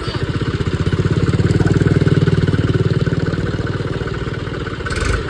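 Diesel tractor engine running, its rapid firing pulses growing louder to a peak about two seconds in and then easing off. A short noisy burst comes near the end.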